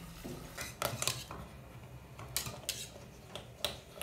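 Wire whisk clinking and scraping against the sides of a stainless steel pot while whisking a cream. The clinks come in an irregular series, a cluster about a second in and several more in the second half.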